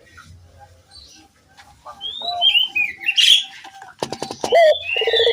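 Birds calling: a series of falling high chirps from about two seconds in, then a quick run of clicks and a puter dove's low coo starting near the end.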